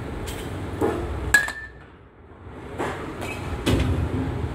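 A metal baseball bat strikes a pitched ball about a second in with a sharp, ringing ping. Duller knocks follow near the end, over a steady low background noise.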